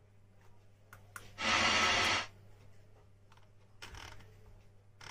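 Mahindra XUV500 W6 car stereo head unit being tested on the bench: a few light clicks of its control-panel buttons, then a short burst of sound from the radio about a second and a half in that cuts off after under a second, over a steady low hum.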